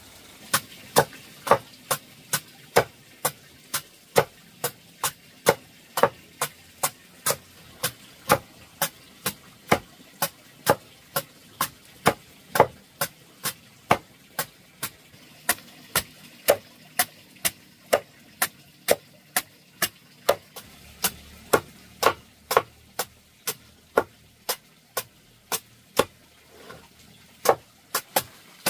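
A machete slicing a banana stem into thin rings, each cut ending in a sharp knock on the chopping block, in a steady rhythm of about two strokes a second.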